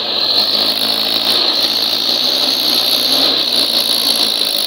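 Mahindra tractor's diesel engine running loud and steady at full throttle, straining to haul a loaded sand trolley out of deep sand, hard enough to lift the tractor's front wheels.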